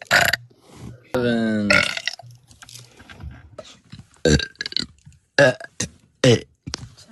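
A person's long, loud burp about a second in, falling in pitch.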